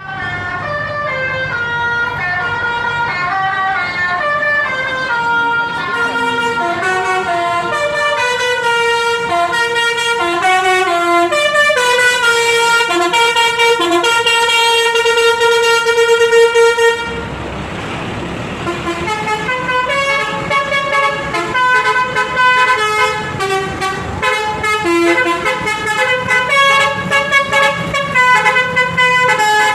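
Basuri V3 telolet musical horn on a tour bus, playing melodies as a run of stepping multi-tone horn notes. About seventeen seconds in the tune breaks off for a second of rushing noise, then a second melody starts.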